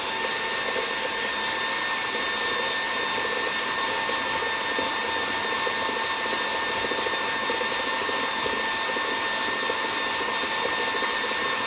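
KitchenAid tilt-head stand mixer running at a constant speed: a steady motor whine over a hiss as the beater whips a thin, runny mix of butter and condensed milk.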